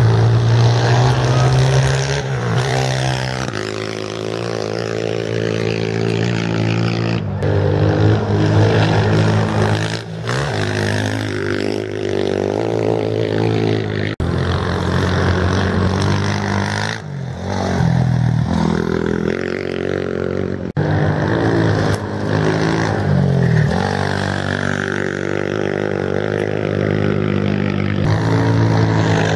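Off-road racing motorcycles accelerating away one after another, each engine revving up and shifting, so the pitch rises and drops again and again. The sound breaks off abruptly several times as one bike's pass gives way to the next.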